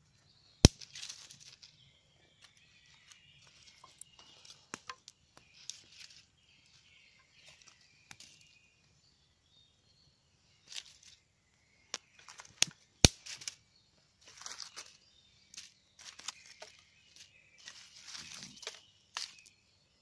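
Wood campfire crackling in irregular bursts, with a few sharp loud pops: one about half a second in and two close together around 13 seconds.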